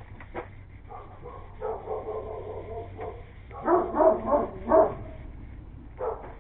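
A dog barking: a drawn-out pitched call, then a quick run of about four loud barks just past the middle.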